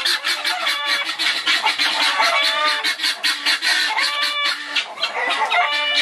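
A chorus of farmyard birds calling all at once: dense, rapid clucking and chattering from chickens and guinea fowl, with louder drawn-out calls breaking through about four times.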